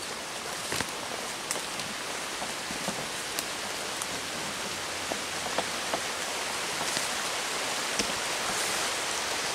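Small woodland brook running over rocks, a steady rush of water that grows slightly louder, with scattered light snaps and crackles of brush and twigs underfoot.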